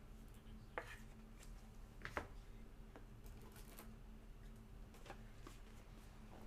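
Trading cards being handled: a scatter of faint clicks and rustles, the clearest about two seconds in, over a low steady hum.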